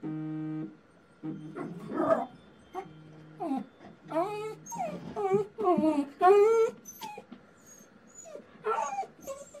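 Jack Russell terrier whining and yipping repeatedly, in high calls that bend up and down in pitch. A steady buzzing tone of under a second sounds at the very start, and a few shorter low buzzes follow.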